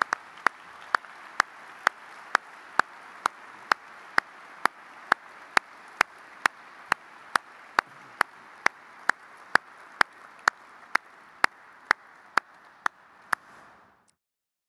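Audience applauding, a steady haze of clapping that slowly fades, with sharp evenly spaced clicks about twice a second standing out above it. The sound cuts off suddenly near the end.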